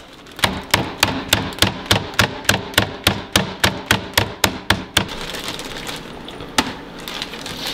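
Meat mallet pounding aoudad backstrap steaks through a plastic bag on a cutting board, to flatten and tenderize them. The strikes come quick and even, about four a second, and stop about five seconds in. After that the plastic bag rustles quietly as it is handled.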